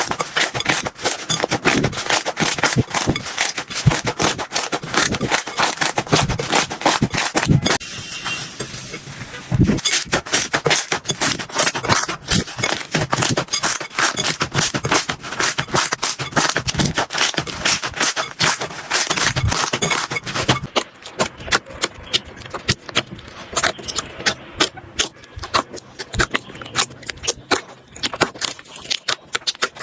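Slime being squeezed, stretched and poked by hand, making dense crackling and popping clicks. The texture changes abruptly about 8 seconds in and again about 20 seconds in.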